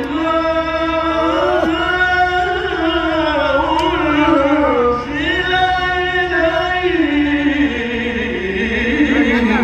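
A man reciting the Quran in melodic mujawwad style, drawing out long ornamented held notes whose pitch winds slowly up and down, with a brief break about five seconds in.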